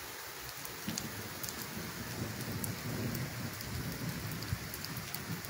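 Steady light rain falling, with scattered drop ticks, over a low rumble of thunder that swells through the middle.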